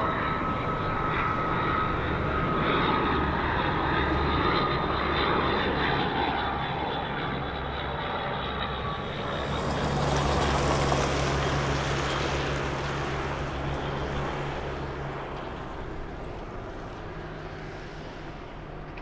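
A steady engine drone that swells about ten seconds in, then slowly fades.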